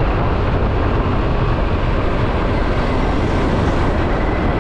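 Steady riding noise from a Yamaha Aerox scooter moving in city traffic: engine and rushing wind, even and unchanging throughout.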